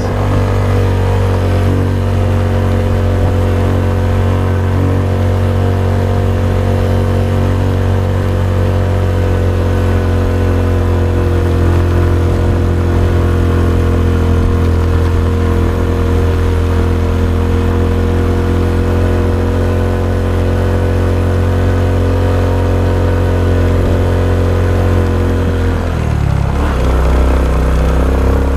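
Honda XRM 125's single-cylinder four-stroke engine running steadily under load on the move, its note sinking slightly. Near the end the note dips briefly, then picks up again at a slightly different pitch.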